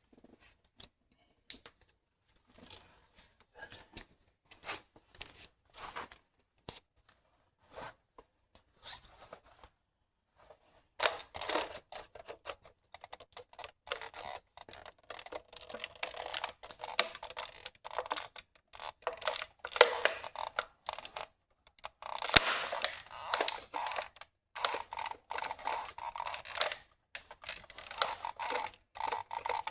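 Toy BMW X5 creaking and crackling under the weight of a person standing on it barefoot: scattered small clicks at first, then after about ten seconds dense, continuous crackling as the body flexes under the load.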